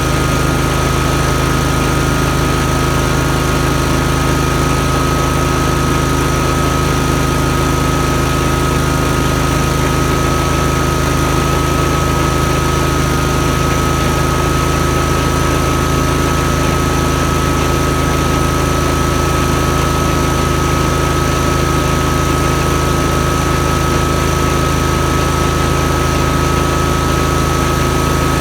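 Yazoo MidMax 52 mower engine running steadily at a constant speed, with a steady high whine over it, while the deck belt and newly fitted spindles turn without blades.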